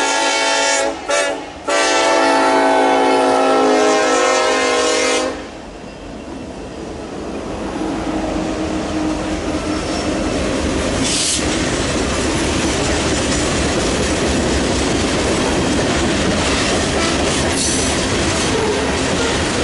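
Horn of Norfolk Southern SD70ACe No. 1071, leading a freight train: it sounds, breaks twice briefly about a second in, then holds a long blast that cuts off about five seconds in. After that the locomotives and freight cars roll past with a steady rumble and wheel clatter, and a single sharp clank about eleven seconds in.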